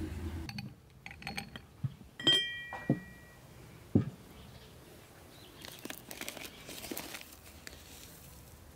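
Porcelain teapot and tea glasses clinking and knocking on a table, one clink ringing on for about a second. Then paper rustling as loose black tea is tipped from its box into the teapot.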